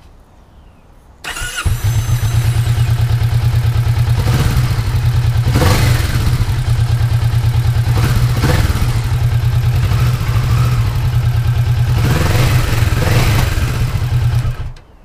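Kawasaki Vulcan S 649 cc parallel-twin engine started on the electric starter about a second in, catching almost at once, then running steadily and revved briefly a few times before it is switched off near the end.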